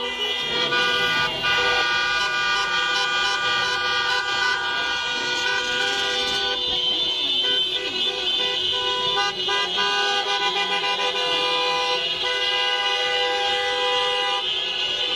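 Many car horns honking at once in long, overlapping held blasts that keep changing, the celebration honking of a car parade.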